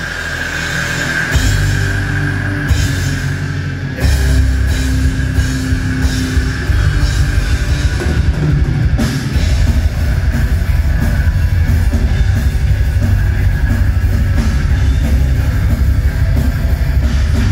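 Live black metal band playing loud, with distorted electric guitar and drum kit; the full band comes in harder about four seconds in, with dense drumming.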